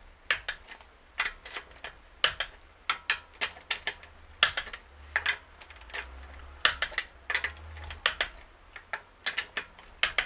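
Hand socket ratchet clicking in short irregular runs as wheel bolts are run in and lightly tightened.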